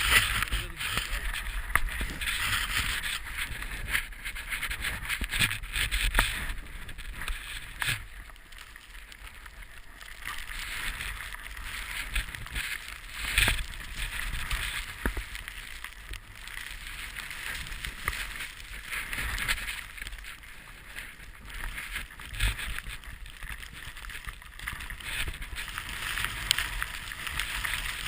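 Snowboard sliding and carving through fresh powder: a hissing rush that swells and eases with each turn, with a few sharp clicks. Underneath runs a steady low rumble of wind on the board-mounted camera's microphone.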